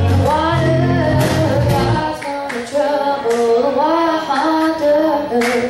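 Live acoustic band music: a girl singing a melody over strummed guitars. The low bass notes drop out about two seconds in, leaving voice and guitar, and come back near the end.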